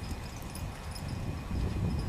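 Wind rumbling on the microphone, gusting up near the end, with a few faint clicks and brief high chirps over it.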